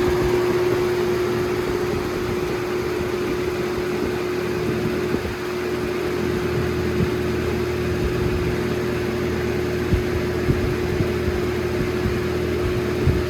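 Holmes HABF-20 box fan running on high: a steady rush of moving air with a steady hum over it, the hum the fan tends to make on its high setting.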